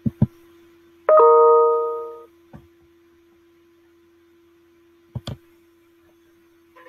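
Two mouse clicks, then a bright chime that rings for about a second and fades away. A soft thud and two more clicks follow, over a faint steady hum.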